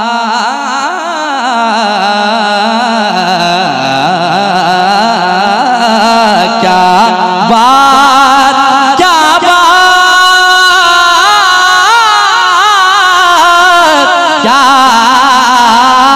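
A man singing a naat into a microphone, drawing out long ornamented notes whose pitch wavers and glides, growing louder about halfway through.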